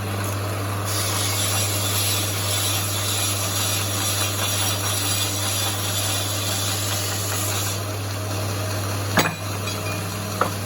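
A 2 x 72 belt grinder running: a steady electric-motor hum under an even rushing hiss from the belt. A sharp knock comes about nine seconds in and a lighter click near the end.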